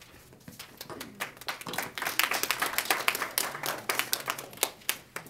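A small audience applauding: scattered hand claps that build up about two seconds in and thin out near the end.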